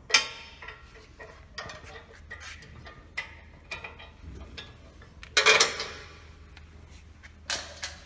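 Bolts, nuts and metal parts clinking and clicking as they are handled and fitted by hand on a chainsaw sawmill's metal frame, with a sharp click just after the start and a louder clatter about five and a half seconds in.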